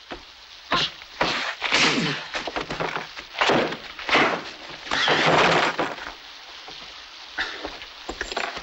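Fight-scene crashes of breaking wood and heavy thuds, several loud bursts in quick succession over the first six seconds, then quieter.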